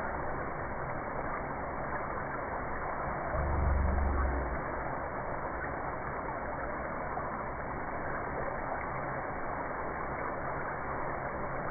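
Thin-cut potato strips deep-frying in canola oil in a stainless steel pot, with a steady hiss of bubbling oil. About three and a half seconds in, a low rumble lasts about a second.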